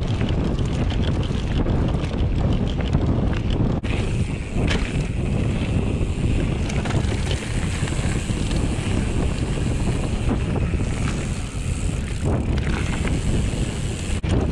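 Mountain bike riding a dirt trail: steady wind rushing over the microphone with the rolling of knobby tyres on dirt, and scattered short knocks and rattles from the bike over bumps.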